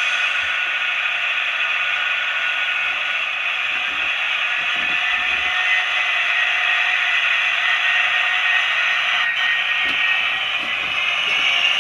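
DCC sound from model diesel locomotives, a steady engine drone with several held tones played through the locos' small on-board speakers, thin and without bass. Near the end the tones rise in pitch as a locomotive powers up.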